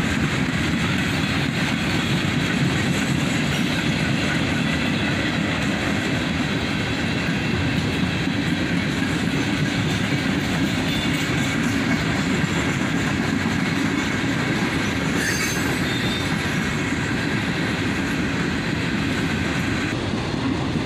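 Freight cars of a passing manifest train rolling by at trackside: the steady rumble of steel wheels on rail, holding even throughout.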